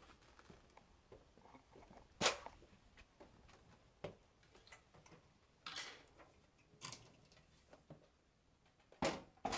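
About five separate knocks and clunks of a stair lift track section being handled and carried to the stairs, the loudest about two seconds in.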